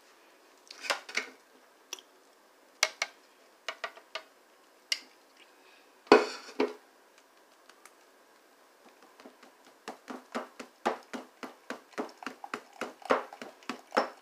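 Clinks and knocks of a metal mesh strainer against a glass jar while watermelon juice is strained: scattered single knocks, a louder one about six seconds in, then a quick run of taps at about four a second near the end.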